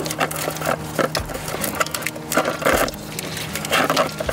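Irregular clicks and light clatter of a screwdriver driving a screw into the plastic dash panel of a compact tractor, with a faint steady hum underneath.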